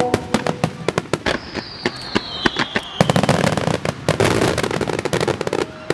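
Fireworks display: a rapid barrage of shell bursts and crackling, with a falling whistle about a second and a half in. A denser crackle sets in about three seconds in and stops near the end.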